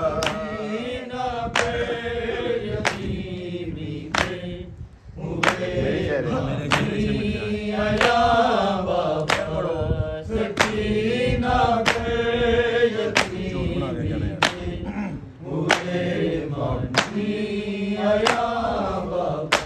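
Men's voices chanting an unaccompanied Urdu noha lament, kept in time by sharp matam hand strikes about once every second and a quarter.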